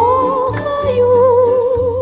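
Female voice holding a sung note with a slow vibrato over a low, steady instrumental bass accompaniment: a song.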